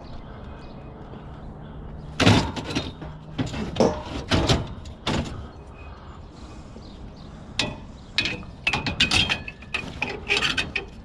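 Scrap metal pieces clanking and knocking together as they are handled, in two bursts of sharp knocks, some with a brief ring.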